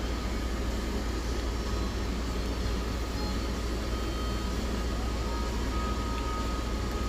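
Steady low rumbling background noise with an even hiss above it and a few faint thin tones, with no breaks or sudden sounds.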